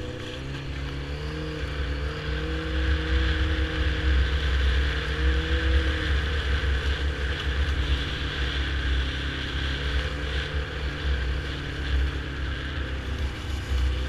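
Yamaha snowmobile engine running under way, heard from the rider's seat. Its pitch climbs as it speeds up over the first second or two, then it holds a steady, loud drone.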